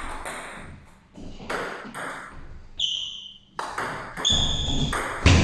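Table tennis rally: the ball clicks off the bats and pings on the table, a hit or bounce about every half second to second, with the loudest hit near the end.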